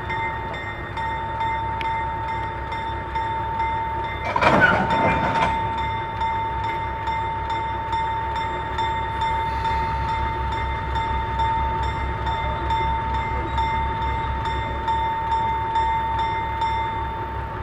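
GE 50-ton diesel locomotive running slowly with a steady low engine throb and a steady high whine. About four seconds in, a loud, short burst of noise lasts about a second.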